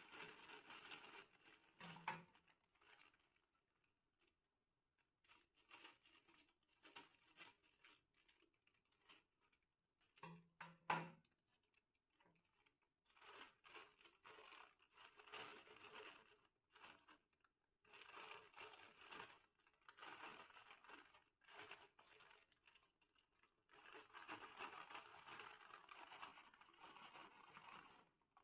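Plastic snack packets crinkling and tearing as they are opened and handled, in bursts with short pauses between. There are two sharper clicks, one about two seconds in and a louder one about eleven seconds in.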